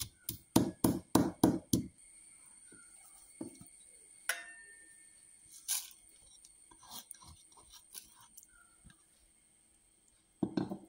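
Wooden pestle pounding cumin, coriander seeds and peppercorns in a mortar, about three or four strokes a second, stopping about two seconds in. After that come quiet scrapes and light clinks as the crushed spices are tipped into a steel pot, and a short louder knock near the end.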